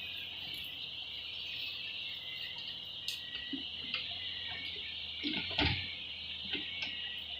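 Insects chirring steadily at a high pitch over a faint low hum, with a few soft knocks a little past the middle.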